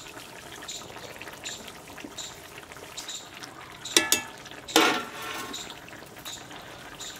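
Curry simmering in an aluminium kadai over a wood fire, a steady low bubbling. About four seconds in, a metal spoon clinks and scrapes against the pan twice.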